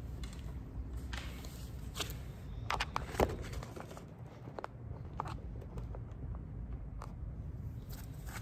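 Reading cards being handled and shuffled: scattered soft rustles and clicks, with one sharper snap about three seconds in, over a low steady hum.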